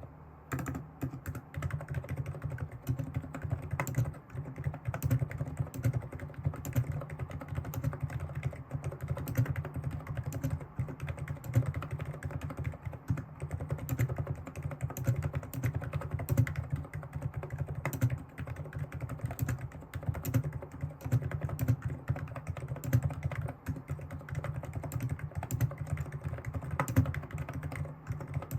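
Fast, continuous typing on a Hansung electro-capacitive keyboard. The keystrokes sound dull and deep, with little sharp click.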